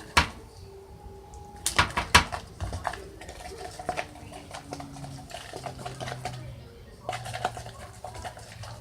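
Mixing slime in a bowl: a few sharp clacks and knocks of a utensil against the bowl, loudest about two seconds in, then lighter scattered ticks over a faint steady background hum.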